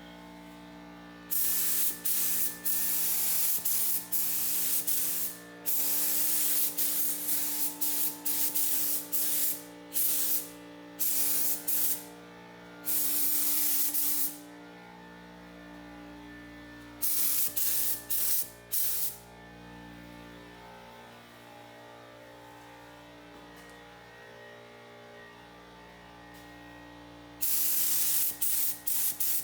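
Paint spraying in repeated bursts of hiss that start and stop sharply as the spray is triggered and released, with several longer runs and some short blips, over a steady low hum.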